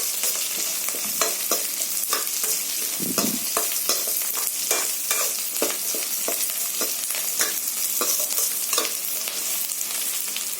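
Onions, dried manathakkali berries and curry leaves sizzling as they sauté in a kadai, with a spatula scraping and tapping against the pan as they are stirred.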